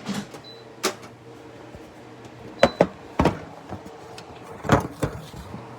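Haier 5200 BTU window air conditioner's fan motor running with a steady low hum, while sharp knocks and clicks come from handling the unit's casing, the loudest about two thirds of the way in.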